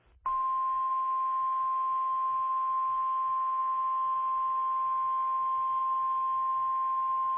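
NOAA Weather Radio's 1050 Hz warning alarm tone: a single steady high tone that starts a moment in and holds without a break, heard through the radio's narrow, hissy audio. It is the alert signal sounded before a broadcast weather warning.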